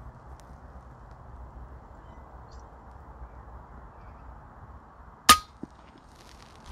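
A single shot from a .22 FX Impact MK2 PCP air rifle firing a slug, about five seconds in: one sharp crack with a brief metallic ring. Before it, only faint steady low background noise.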